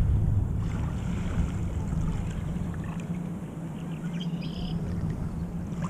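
Small waves washing over a pebbly lake shore, with wind rumbling on the microphone and a steady low drone underneath.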